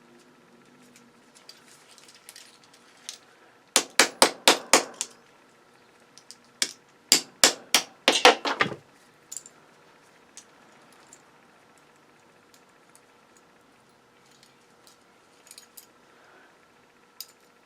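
Hammer striking metal parts of a circuit breaker in two quick bursts: about six rapid, sharp strikes around four seconds in, then another group of strikes a few seconds later.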